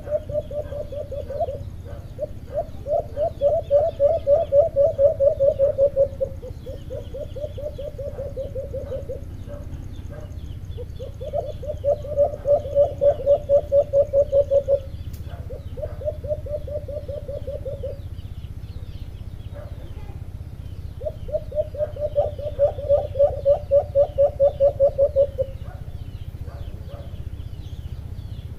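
Caged alimokon decoy doves calling: runs of rapid, evenly pulsed coos, each lasting a few seconds, repeated about six times with short pauses between.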